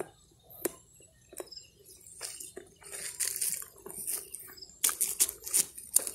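Irregular close crackling and rustling, with scattered short crunches after a quiet first second and a dense cluster of them about five seconds in.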